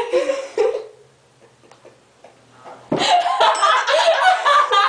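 People laughing loudly and continuously from about three seconds in, after a short quiet pause.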